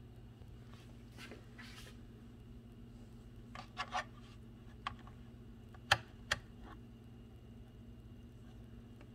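Clicks and clinks from handling a Hamilton Beach slow cooker, a small cluster then two sharper clicks about six seconds in, over a faint steady hum.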